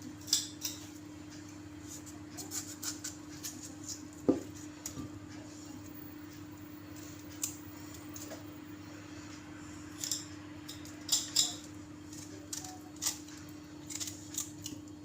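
Knife cutting a lemon into pieces: scattered light clicks and taps, with one duller knock about four seconds in, over a steady low hum.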